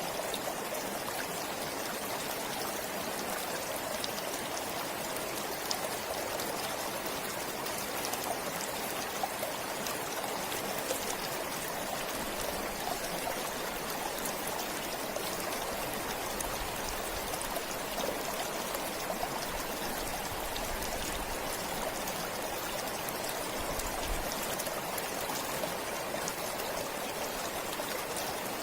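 Forest stream flowing steadily over its bed, a continuous rush of running water with small splashes and drips.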